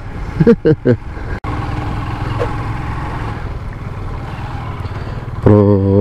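Honda CG125's single-cylinder four-stroke engine running steadily as the motorcycle rides along, heard from on the bike. A few short spoken sounds come in the first second, and speech starts near the end.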